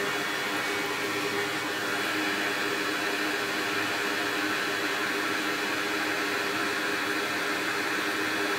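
Steady whirring of a small electric fan or blower, with a low hum running through it.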